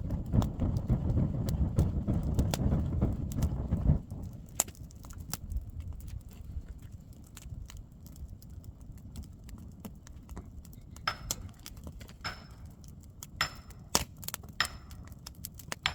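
A loud low rumble for about four seconds that stops abruptly, then a wood fire crackling, with many scattered sharp pops and a few clinks.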